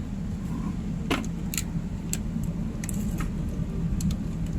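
Steady low machine hum, like a vessel's engine or generator, with about half a dozen sharp metallic clicks and clinks scattered over it. The strongest click comes about a second in.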